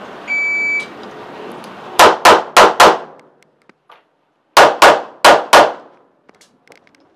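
A shot-timer start beep, then eight handgun shots in two strings of four, about a third of a second apart. A pause of about a second and a half separates the two strings.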